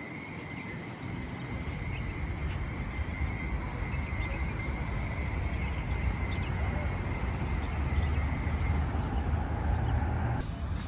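Outdoor street ambience: a low traffic rumble that grows louder, with small birds chirping now and then over a steady high-pitched whine. The sound changes abruptly near the end.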